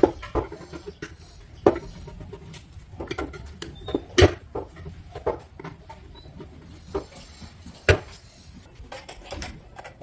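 Screwdriver clicking and scraping on the metal fuel tank of a Bajaj Platina as the filler-cap mounting screws are undone. Scattered sharp metal knocks run through it; the loudest comes about four seconds in and another near eight seconds.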